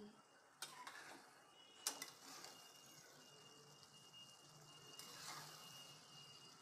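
Faint clinks and scrapes of a spatula against a steel pan and a glass bowl as thick cooked curry is scooped out, with soft wet stirring sounds. A few separate knocks come about half a second in, near two seconds and near five seconds.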